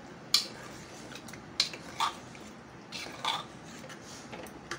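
Metal spoon stirring thick chicken masala in an open pressure cooker, scraping and giving a few sharp clinks against the pot's side, as the masala is fried down with constant stirring (bhuna).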